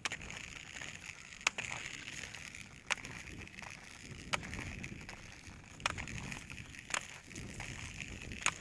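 Roller-ski wheels rolling over rough, leaf-covered asphalt in a steady grinding rush, with sharp clicks from ski-pole tips planting on the pavement about every second and a half.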